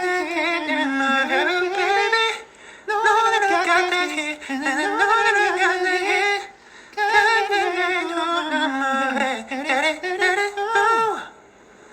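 A man singing solo without accompaniment: three phrases a few seconds each, the pitch sliding and wavering in vocal runs, with short breaks between them.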